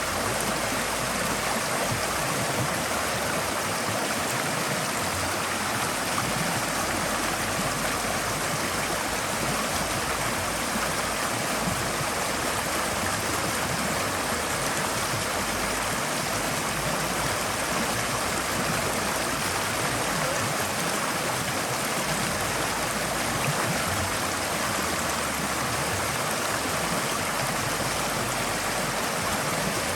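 Forest stream flowing steadily, water rushing and gurgling over rocks.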